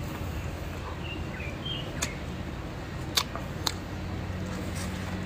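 Eating sounds: chewing, with three sharp clicks about two, three and three and a half seconds in. Under them runs a steady low hum, and a few faint bird chirps come about a second in.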